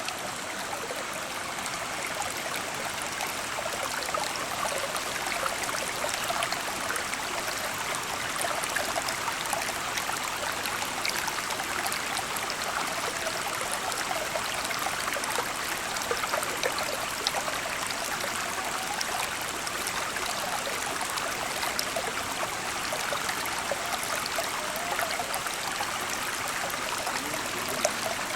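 Stream water flowing in a steady rush, with many small splashes and trickles throughout.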